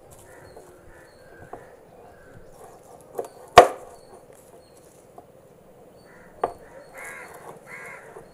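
A chef's knife cutting garlic cloves on a wooden cutting board: a few sharp knocks of the blade against the board, the loudest about three and a half seconds in.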